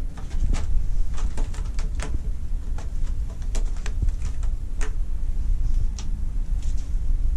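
A cat playing at a sisal scratching post, its claws and paws making irregular sharp clicks and light taps as it reaches and bats at a dangling toy, over a steady low rumble.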